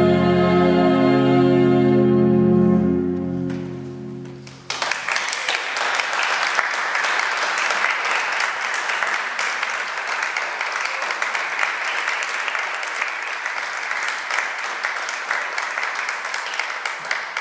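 Final chord of a pipe organ and choir held, then fading away. About five seconds in, audience applause breaks out suddenly and carries on steadily.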